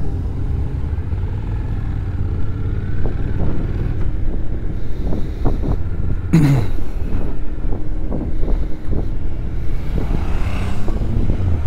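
Honda NC750X parallel-twin motorcycle engine running, with wind buffeting the helmet microphone. About six seconds in, a passing vehicle goes by, its engine note dropping in pitch.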